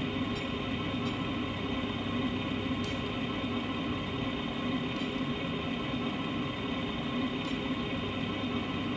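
Simulated diesel engine idle from the 1/14 Tamiya Scania 770S RC truck's electronic sound unit, running steadily through its small speaker while the truck stands still.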